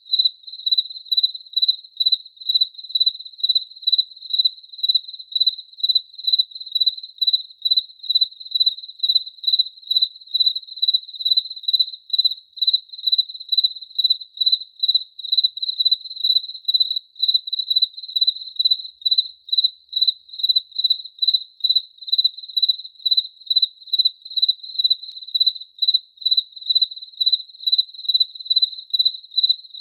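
Cricket chirping steadily on one high pitch, in an even rhythm of about two chirps a second.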